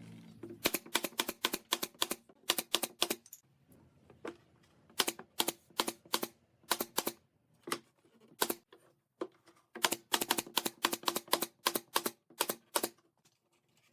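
Light, sharp tapping on wood in quick runs of several taps a second, with short pauses between the runs.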